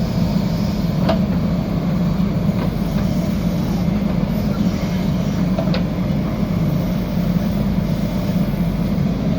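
JCB 3DX backhoe loader's diesel engine running steadily under work, with a few faint clicks or knocks over it.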